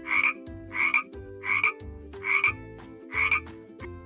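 Frog croaking, five short croaks evenly spaced about one every 0.8 seconds.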